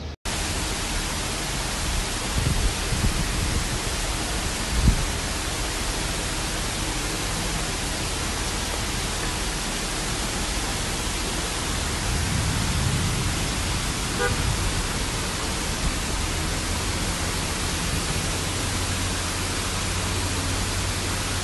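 Heavy downpour of rain: a dense, steady hiss, with one sharp thump about five seconds in.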